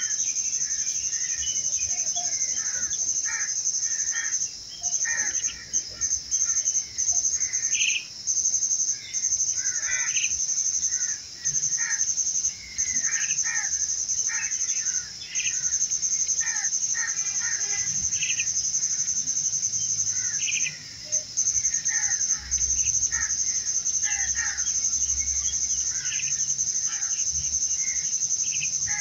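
A steady, high-pitched insect trill, broken now and then by short gaps, with many short bird chirps and calls scattered through it.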